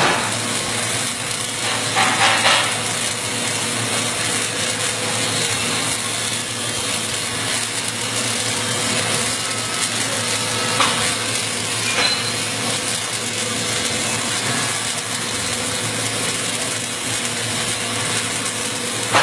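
Welding arc crackling and hissing steadily as a bead is run around a pipe-to-flange joint, with a faint steady hum underneath and a few louder crackles about two seconds in and again around eleven seconds.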